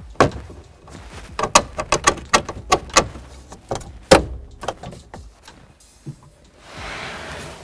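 Hard plastic interior trim panel being pushed and knocked into place on a car's hatch opening: a rapid, irregular string of sharp clicks and knocks as its pins and clips seat, the loudest about four seconds in. A short rustling scrape follows near the end.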